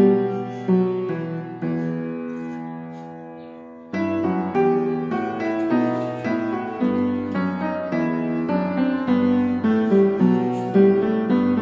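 Background piano music: steady, evenly struck notes. About two seconds in, a chord is held and slowly fades, then the playing starts again abruptly about four seconds in.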